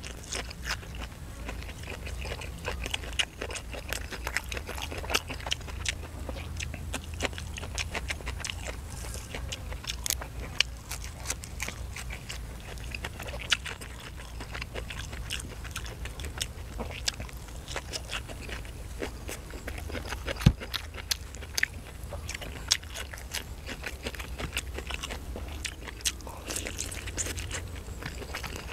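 Close-miked chewing with many small wet clicks and smacks from a person eating grilled chicken and shredded green papaya salad by hand, over a steady low rumble. One sharp click stands out about twenty seconds in.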